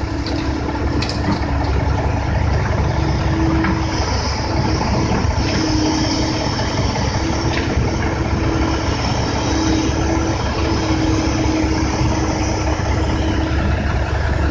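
Diesel engine of a Kobelco 135SR excavator running steadily under load as it digs fill dirt and swings a full bucket, with a low rumble and a hum that rises and falls in level.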